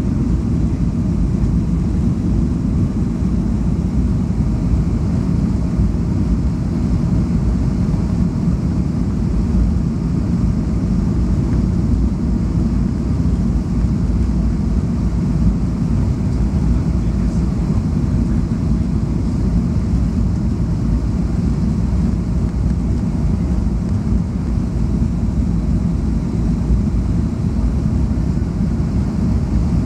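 Steady low cabin noise of a Boeing 737-200 in flight on approach with flaps extended: the hum of its Pratt & Whitney JT8D turbofans mixed with airflow, heard from a window seat.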